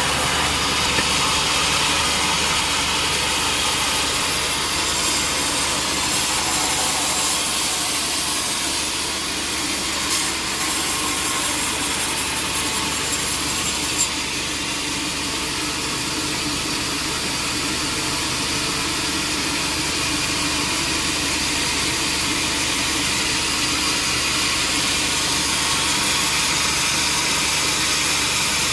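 Sawmill machinery running steadily, a constant mechanical noise with a couple of brief knocks about ten and fourteen seconds in.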